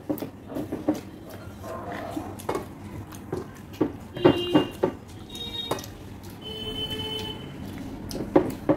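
Close-up eating sounds of two people eating rice and fried pakoras with their fingers: chewing and lip-smacking, fingers working rice on ceramic plates, and a few sharper clicks and knocks, the loudest about halfway through.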